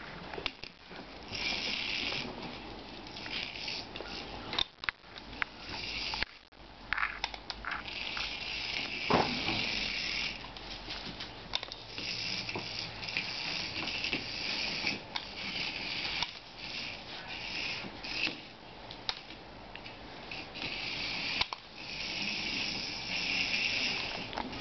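Remote-controlled toy mouse's small electric motor whirring in repeated short runs of a second or two, with scattered taps and clicks between them.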